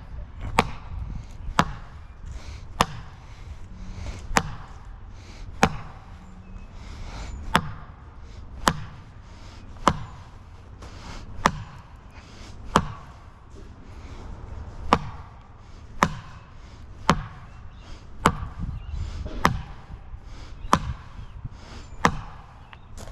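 Repeated hammer blows, one sharp knock about every second, in a steady run of nearly twenty strikes.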